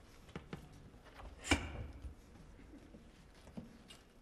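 Hushed concert hall with scattered small knocks and shuffles, and one sharp click or knock about a second and a half in; no music playing.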